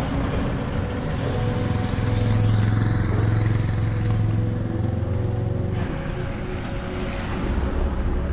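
Motor vehicle engine running close by, a steady low hum that swells in the middle and drops away about six seconds in.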